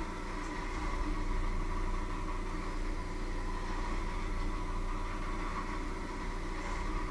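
Electric hand mixer running steadily in a bowl, a constant motor whine with a low hum and no change in speed.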